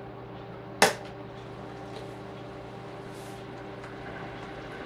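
A single sharp click about a second in, over a steady low hum: the tiny antenna connector snapping off the nettop's mini PCIe Wi-Fi card as its antenna leads are unplugged.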